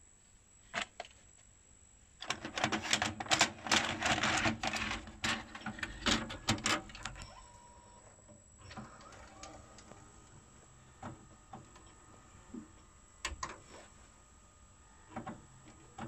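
Samsung SV-660B VHS video recorder's tape mechanism loading a cassette: a click, then several seconds of dense mechanical clicking and clattering, followed by quieter whirring with a steady hum and occasional clicks as the tape threads and starts to play.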